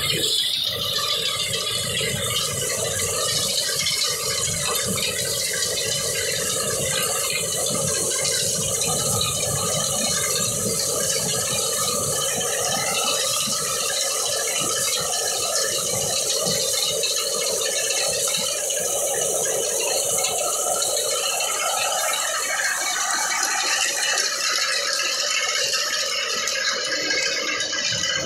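Tractor-front-mounted Al-Haseeb reaper binder cutting wheat: a steady, loud mechanical rattle from its reciprocating cutter bar and mechanism, with the tractor running.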